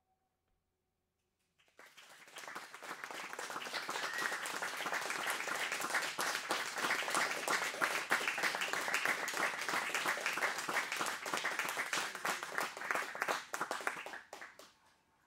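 A violin's last note fades out, and after a short pause an audience applauds. The clapping builds over the first few seconds, holds steady, then dies away near the end.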